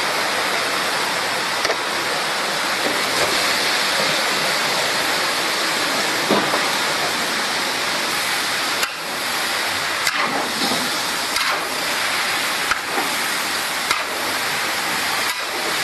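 Food sizzling steadily in a large canteen wok, with a few short sharp clacks of the spatula against the pan in the second half.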